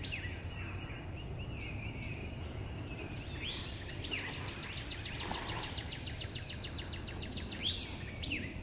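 Wild birds calling: a few short rising whistled notes and a fast, even trill of about nine notes a second lasting several seconds, over a low steady background rumble.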